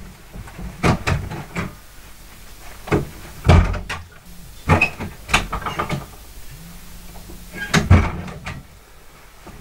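Irregular knocks and clunks in a small room, a dozen or so spread over several seconds, the loudest about three and a half and eight seconds in.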